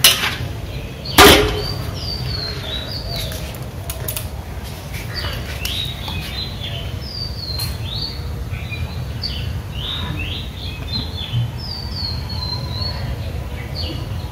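Small birds chirping repeatedly in short falling notes over a steady low hum. Two sharp knocks come near the start, about a second apart; the second is the loudest sound.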